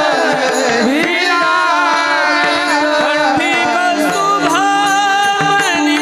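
Devotional kirtan singing: a voice holding long notes that glide and wind in pitch over a steady drone, with drum strokes accompanying.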